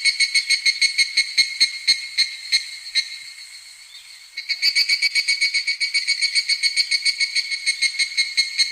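Evening cicadas (Tanna japonensis) calling in a fast, even pulsing trill of about seven pulses a second. The trill fades out about three seconds in and starts up again loudly a second later.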